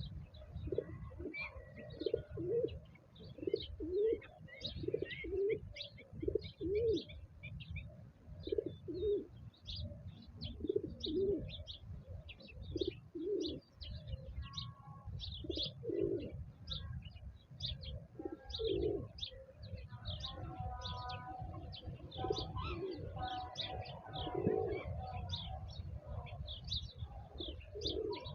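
Birds: a low cooing call repeated about once a second, over a constant stream of high chirping from small birds, with a steady low rumble beneath.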